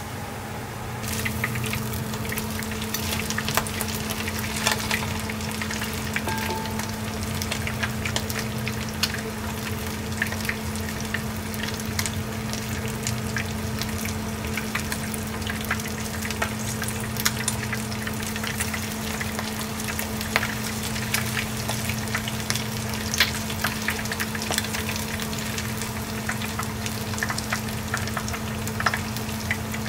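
Food frying in hot oil: a dense, steady crackle and sizzle starting about a second in, over a steady low hum.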